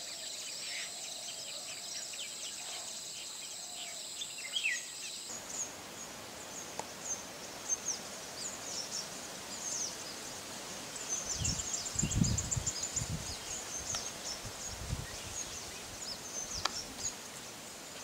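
Outdoor ambience of wild birds: many short, high-pitched chirps and calls scattered throughout. A steady high-pitched drone sits under them for the first five seconds and stops suddenly, and a few low rumbling bumps come in around the middle.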